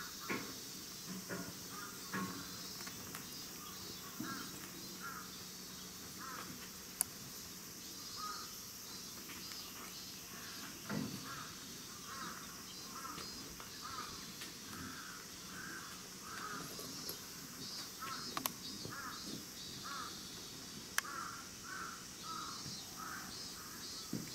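Birds calling over and over in short notes, about two or three a second, with a steady high insect drone behind and a few sharp clicks.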